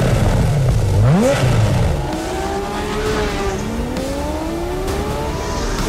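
Porsche Carrera GT's 5.7-litre V10 engine revving: a sharp rev blip about a second in, then a lower note that climbs steadily as the car accelerates.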